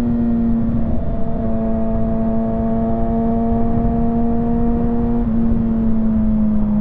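Kawasaki ZX6R 636 inline-four engine running steadily at highway cruising speed, its exhaust note holding an almost constant pitch that drifts slightly lower, over a steady rushing noise.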